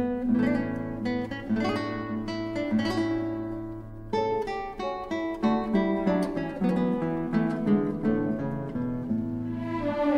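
Instrumental music: an acoustic guitar playing a run of plucked notes, each ringing and fading, over some held lower notes.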